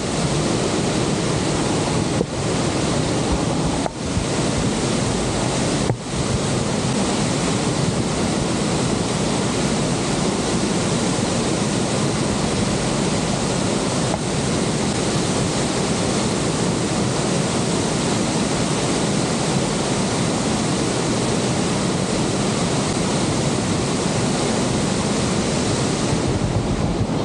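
The Horseshoe Falls roaring, a loud, steady rush of falling water, with wind on the microphone. The roar dips briefly a few times in the first six seconds.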